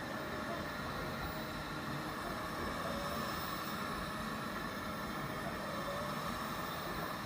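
Window-cleaning robot running steadily, its suction fan giving an even whirring noise with a faint high whine.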